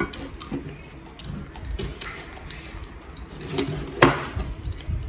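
Kitchen knife sawing through cooked meat on a wooden cutting board, with irregular scraping and a sharp knock of the blade on the board about four seconds in.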